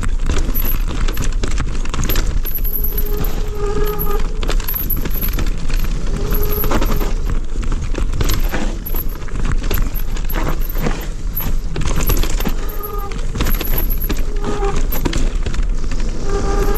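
Electric mountain bike clattering over a rough dirt trail at speed: a constant rattle of chain and components over a low rumble of tyres and wind. A short, steady whine comes and goes several times.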